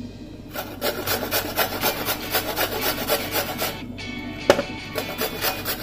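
Indian gooseberry (amla) grated on the coarse side of a metal box grater: quick rasping strokes, about three a second, with a short pause and a sharp knock around four seconds in before the grating goes on.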